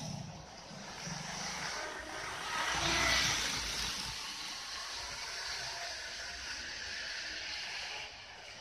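Model trains running on a layout's track: a steady motor-and-wheel rumble that swells about three seconds in and drops off near the end.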